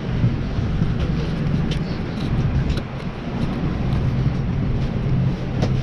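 Steady low rumble of a moving vehicle heard from inside, with faint scattered clicks.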